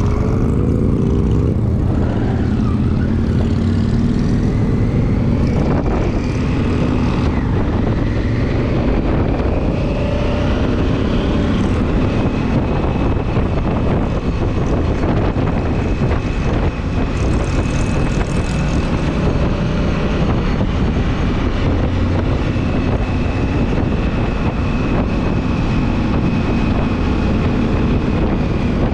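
Motorcycle engine heard from the rider's own bike, rising in pitch as it pulls away and shifts up over the first several seconds, then running steadily at cruising speed under a constant rush of wind noise.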